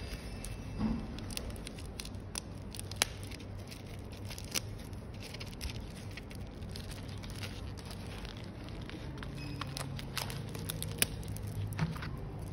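Plastic bubble wrap around a screen panel crinkling and crackling as it is handled, with scattered sharp clicks. A steady low hum sits underneath.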